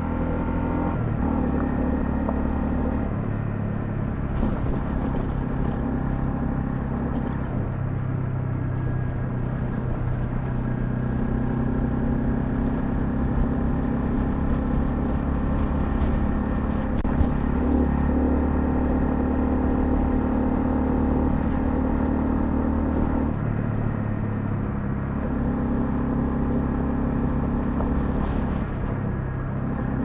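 Honda CL250 motorcycle engine running on the move, its note dropping and rising in steps several times as the rider changes gear and throttle.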